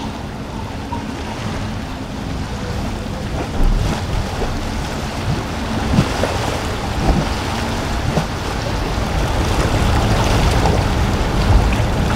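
Midnight Express powerboat's outboard engines running at speed, a low drone mixed with the wash of surf and wind buffeting the microphone. A brief slam of spray about halfway through as the hull punches through a wave, and the sound grows louder toward the end as the boat comes closer.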